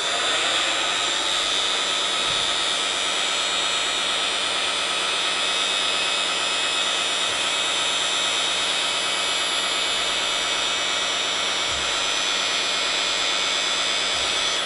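An RC dump truck's hydraulic tipping system, the pump whining steadily while the telescopic cylinder extends and raises the tipper body. It starts suddenly and cuts off suddenly when the body reaches full tilt.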